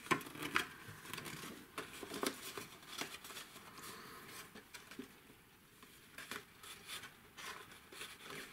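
Sheets of card and designer paper rustling and scraping as they are handled, folded and pressed together by hand, with scattered soft clicks and taps.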